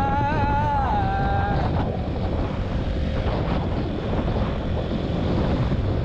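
Strong wind buffeting the microphone of a motorcycle rider's camera at road speed: a loud, steady rumble.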